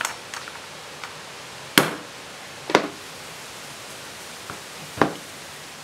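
Rubber mallet striking a ball bearing stacked on top of a new one, knocking the new bearing into the scooter's wheel hub: three sharp knocks at uneven intervals.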